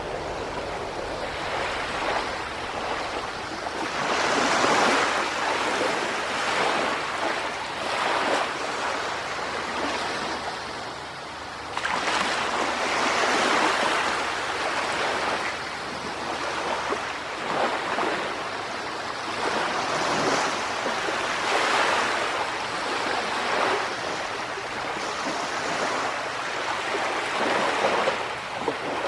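Small sea waves lapping and washing onto a sandy beach, the wash rising and falling every couple of seconds.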